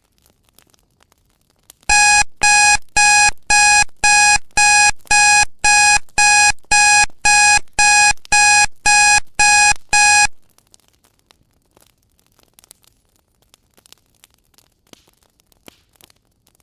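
Alarm beeping about twice a second for around eight seconds, a steady electronic tone repeated evenly; a pomodoro timer going off at the end of a 25-minute study session.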